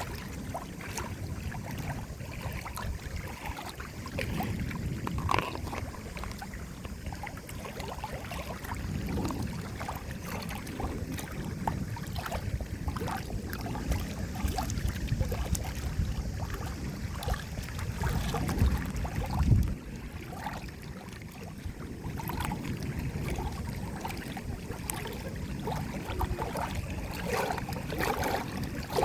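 Water moving and lapping, with many small irregular splashes and gurgles over a low rumble; the rumble swells about two-thirds of the way through and then drops away suddenly.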